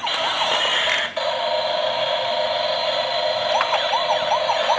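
Toy emergency vehicle playing its electronic siren sound, a steady tone joined about three and a half seconds in by a fast repeating warble.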